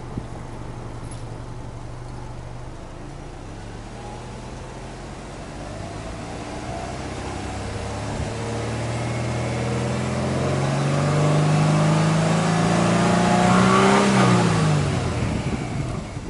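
Subaru Legacy B4 2.0GT spec B's turbocharged EJ20 flat-four, heard at its twin exhaust tips, free-revved in place: it idles steadily, then climbs slowly and evenly in pitch and loudness for about ten seconds before the throttle is let go and it drops back toward idle near the end.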